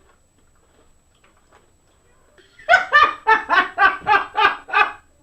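A person laughing out loud. The laugh starts about two and a half seconds in as a quick run of about eight 'ha's, roughly four a second, and lasts about two seconds.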